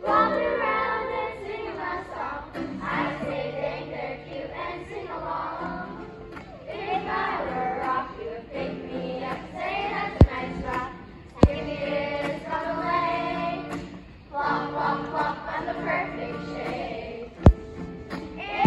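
Group of children singing together to a strummed acoustic guitar. Three sharp knocks cut through: two close together about ten seconds in, and one near the end.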